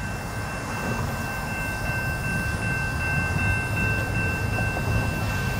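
Diesel freight locomotive approaching: a steady low engine rumble that slowly grows louder, with two thin steady high tones running over it.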